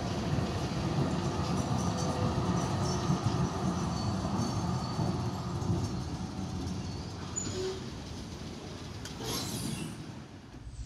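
A1-class tram running on street rails as it comes into a platform stop and slows, a steady low rumble of wheels and running gear. The sound fades away near the end.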